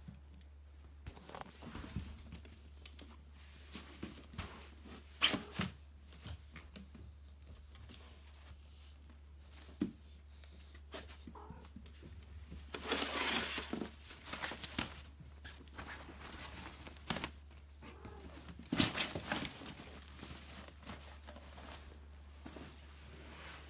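Scattered light knocks and taps from cats moving about on a wooden floor, with a few seconds of crinkling fabric rustle about halfway through and a shorter burst near the end as a nylon pop-up cat tent is spread out and pushed at. A faint low hum runs underneath.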